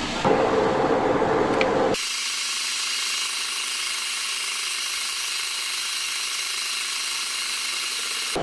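Metal lathe running and machining, a steady mechanical noise with several steady high tones. About two seconds in the sound changes abruptly to a thinner, hissier version.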